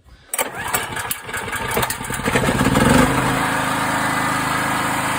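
Honda portable generator's small engine pull-started, catching about a second in, firing unevenly as it picks up speed, then settling into a steady run after about three seconds. It is a warm restart: it would not start with the choke open because the engine had already been running.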